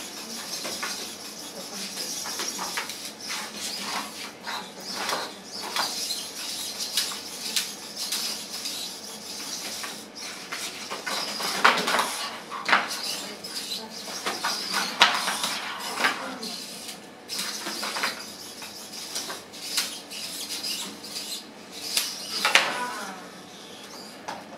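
Small humanoid wrestling robots moving and grappling: their servo motors whir, and their metal frames clatter and knock against each other and the ring mat, with a few sharper knocks about halfway through and near the end.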